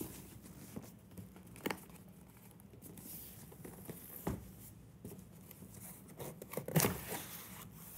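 Cardboard shipping box being slid and turned over on a table: faint scraping with a few scattered knocks, the loudest handling noise coming about seven seconds in.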